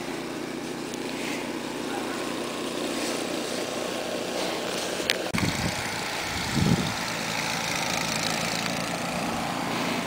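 Steady drone of a small motor running, with two brief low thumps about five and a half and nearly seven seconds in.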